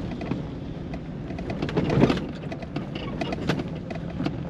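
Pickup truck (2000 Chevrolet Silverado on 33-inch tyres) heard from inside the cab, crawling over a very rough gravel road: a steady low rumble of engine and tyres with frequent knocks and rattles as it bounces, and a heavier jolt about two seconds in.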